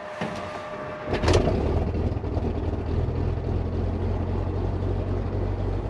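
Left engine of a Beechcraft G58 Baron, a six-cylinder Continental IO-550, cold-starting: it catches about a second in with a sharp click and jump in level, then runs steadily at a low idle.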